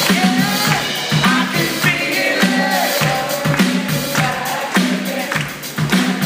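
Live rock band playing with a sung vocal line over a steady drum beat.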